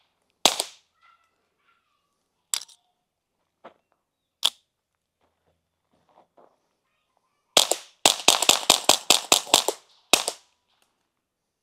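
Suppressed Ruger Mark IV .22 pistol with a Q Cherry Bomb can, firing three single shots about two seconds apart. Then comes a rapid string of about a dozen shots in roughly two and a half seconds. Each shot is a short, sharp crack.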